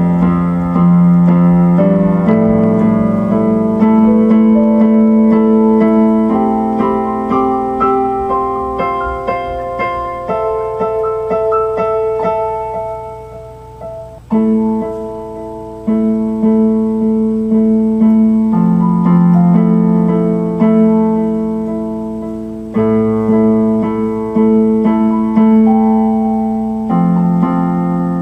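Electronic keyboard played with a piano sound: slow chords, each struck and left to ring and fade before the next. About halfway through the playing dies away almost to nothing before a new chord comes in.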